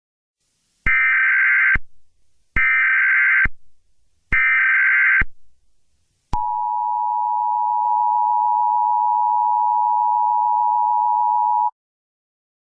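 Emergency Alert System broadcast tones: three short, identical warbling SAME data bursts of about a second each, then the two-tone EAS attention signal (853 and 960 Hz) held steady for about five seconds before cutting off.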